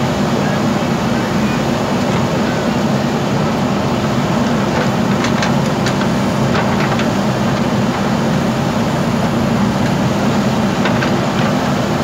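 JCB backhoe loader's diesel engine running steadily while the backhoe arm digs and lifts rock, with a few faint knocks in the middle.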